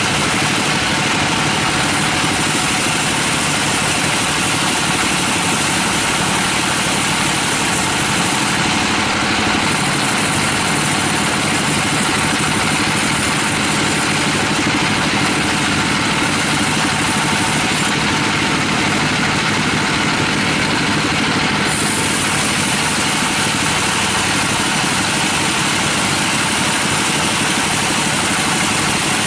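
Bandsaw mill running steadily as its blade cuts lengthwise through a teak log: a constant loud machine noise with no pauses.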